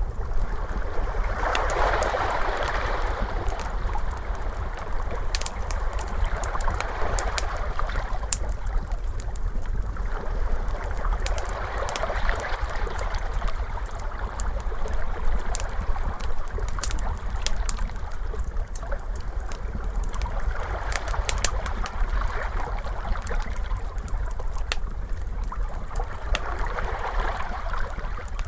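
Ocean waves washing in, swelling and fading every several seconds over a steady low rumble, mixed with the scattered sharp pops and crackles of a wood fire.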